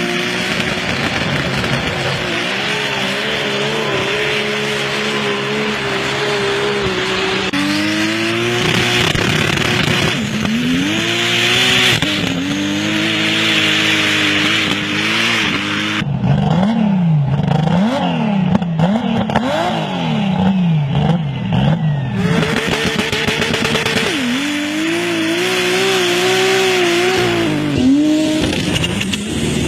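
Heavily modified high-horsepower Jeep engine running hard, its pitch climbing and falling as it is driven. For several seconds in the middle it is revved up and down in quick repeated blips. A loud hiss runs under it for much of the time.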